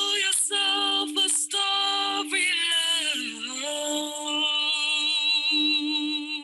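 Recorded song: a woman singing a slow melody over the steady drone of sound bowls, settling into a long held note with vibrato from about four seconds in.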